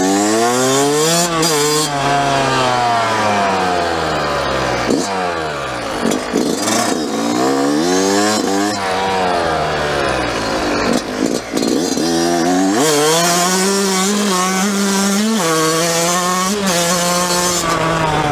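Yamaha YZ dirt bike engine pulling hard through the gears: its pitch climbs and drops back several times as the rider shifts up, then holds steadier at cruising speed over the last few seconds.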